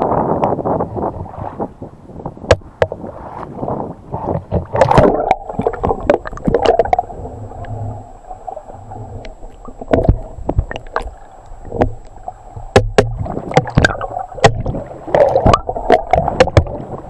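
Muffled water sloshing and gurgling around a camera held at and just under the water surface, starting with a splash, with many sharp clicks and knocks throughout.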